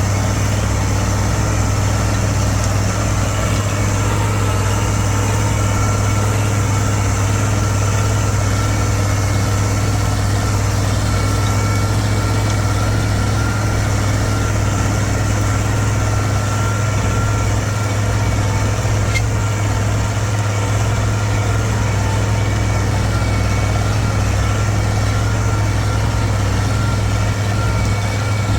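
Farm tractor's diesel engine running steadily under load while pulling a chisel plow, a constant low drone with no change in speed.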